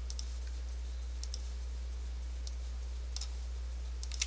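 Computer mouse buttons clicking, short sharp clicks often in close pairs, about once a second, as vertices are selected and edited in 3D modeling software. Beneath them runs a steady low electrical hum on the recording.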